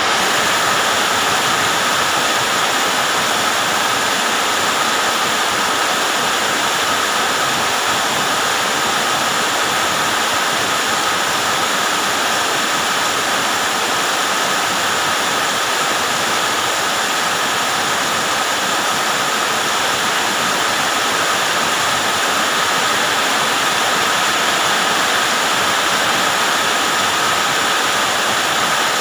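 Heavy rain pouring down steadily onto a paved road, a dense, even hiss that holds the same level throughout.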